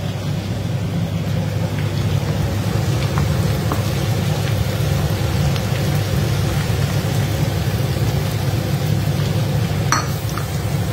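Garlic paste and ground spices frying in hot oil in a kadai: a steady sizzle over a low hum, with a few light clicks of a steel ladle stirring against the pan, the clearest near the end.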